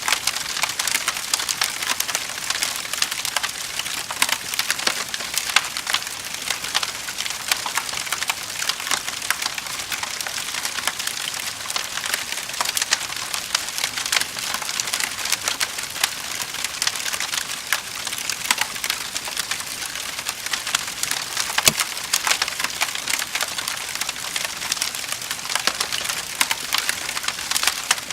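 Wood fire burning in a fireplace: a steady, dense crackling and popping of burning logs, with a few louder pops.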